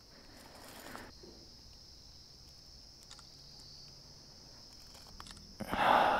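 Insects keeping up a steady, shrill high-pitched drone, with a brief louder rush of noise near the end.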